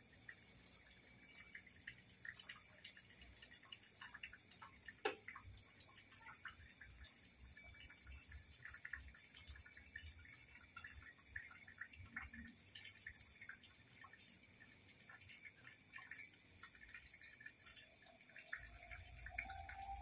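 Faint, scattered dripping and splashing of water poured from a plastic bottle onto a stone grave.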